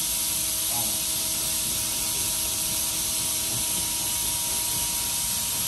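Portable carpet spot cleaner running, its suction motor giving a steady whine under a loud hiss as the hand tool is worked over a rug.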